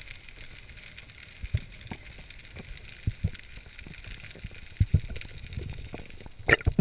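Underwater sound of a speared white seabream thrashing on a spear shaft: irregular low knocks over a steady hiss, with a few loud sharp clicks about six and a half seconds in.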